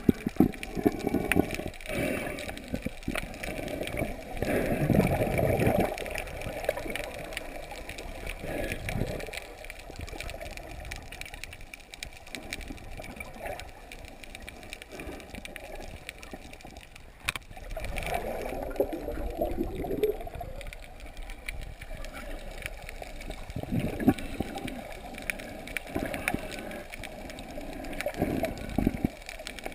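Water sloshing and gurgling around a camera held just under the sea surface, dull and low, coming in uneven swells. There is one sharp click part-way through.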